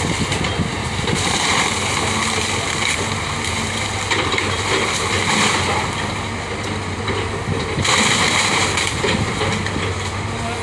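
Cat 313F hydraulic excavator's diesel engine running steadily while the machine demolishes a wooden house, with bursts of crunching and clattering from breaking timber and corrugated sheet metal, the loudest about eight seconds in.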